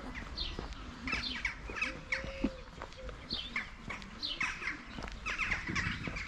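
Small birds chirping busily: many short, quick chirps in close succession over a low steady rumble.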